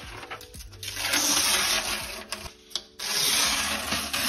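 Old paper lining being torn and peeled off a painted wall by hand, in two long ripping pulls with a short pause between.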